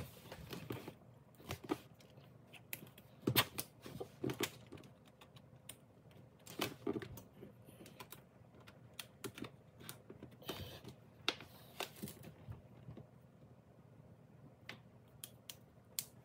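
Scattered, irregular clicks and taps from handling a Lenovo ThinkPad 11e Chromebook and plugging a USB flash drive back into its side port.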